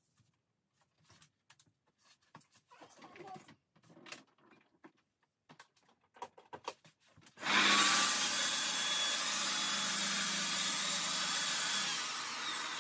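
Light clicks and knocks of the saw being set on its guide rail, then about seven seconds in a plunge-cut track saw starts and runs steadily, cutting through a high-density fiberboard panel, fading near the end.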